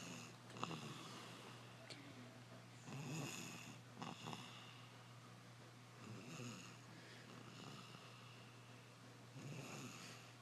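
A two-year-old child snoring heavily: about one snore every three seconds, with a couple of short clicking snorts between. A steady low hum runs underneath.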